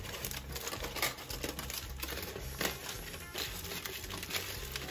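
Aluminium foil crinkling and rustling as it is crumpled and pressed by hand over a cooking pot to cover it, with many short crackles. Background music plays underneath.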